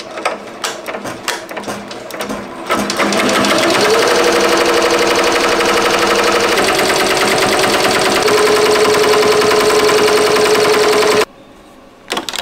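Ricoma MT-1501 15-needle embroidery machine stitching: a few uneven clicks as it starts, then about three seconds in it speeds up into a fast, steady stitching rattle with a hum that rises in pitch. It cuts off suddenly about eleven seconds in, followed by a couple of clicks near the end.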